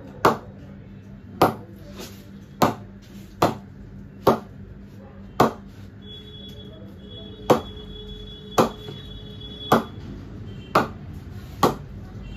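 Leather cricket ball bounced repeatedly off the face of a new, unknocked BAS cricket bat: about a dozen sharp knocks, roughly one a second, with a short pause partway through. This is a ping test of the blade's rebound, and the ping is judged excellent ('एक नंबर').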